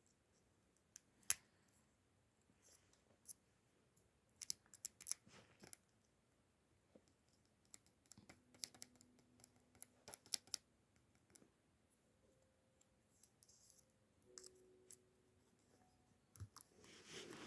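Scattered faint clicks and light taps, quiet overall, with a sharper click about a second in and clusters of clicks in the middle.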